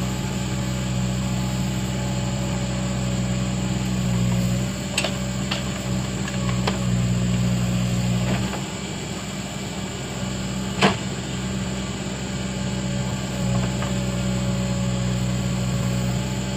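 Case backhoe loader's diesel engine running steadily while its hydraulic backhoe arm digs and lifts a bucket of sand, with a few sharp knocks, the loudest about eleven seconds in.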